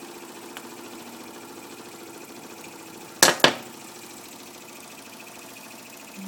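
Mamod SE2 toy steam engine running steadily under steam, driving a small Mamod grinder, with a fast, even chuffing rhythm. Two sharp clacks a quarter-second apart about three seconds in are the loudest sounds.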